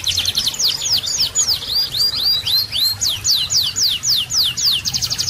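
Songbird singing a fast series of sharp, high whistled notes that each sweep down in pitch, about four or five a second, with a few hooked upswept notes in the middle: the rough 'shot' phrases of a bird-song training track.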